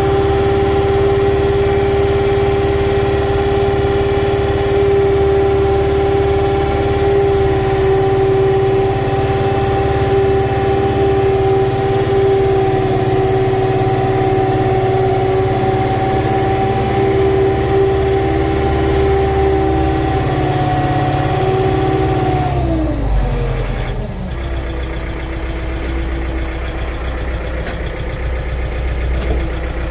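Kukje 5015-N tractor's diesel engine heard from inside the cab, running steadily at working revs while driving. About three quarters of the way through, the revs fall and it settles to a lower idle.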